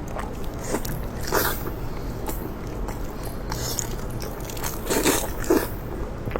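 Close-up chewing and crunching of food, with sharper crunches about a second and a half in and again around five seconds in.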